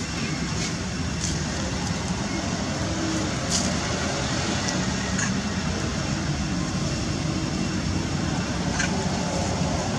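Steady outdoor background noise, an even hiss and low rumble, with a few faint short clicks or chirps.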